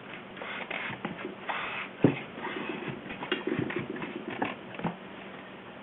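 Fingers rubbing around the inside of a bicycle tyre's casing, feeling for a thorn, rock or glass that caused the flat: irregular scuffing of rubber with a few clicks and a sharp knock about two seconds in.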